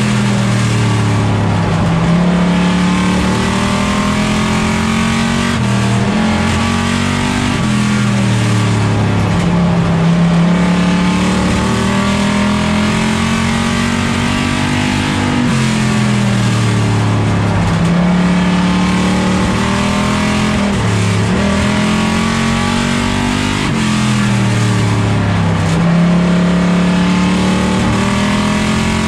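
Plymouth Duster race car's engine at racing speed, heard from inside its cockpit. The engine note drops off and climbs again several times as the car lifts and accelerates around the track.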